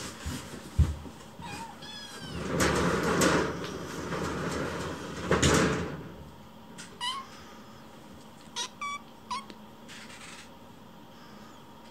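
Kittens meowing for their food: several short, high-pitched meows, mostly in the second half. A loud scraping rustle lasting about three seconds dominates the middle.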